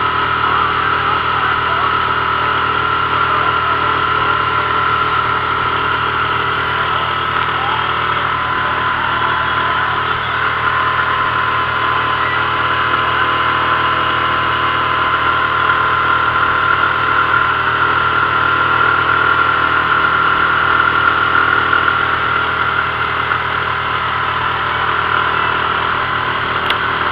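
Small boat's outboard motor running steadily at cruising speed, a constant engine drone with a high whine over it.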